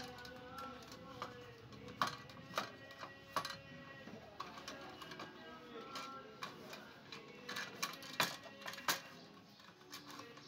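Rusty Feuerhand 275 hurricane lantern clinking and rattling as it is handled and wiped with a cloth: irregular sharp metal clicks and knocks from its loose wire bail and frame.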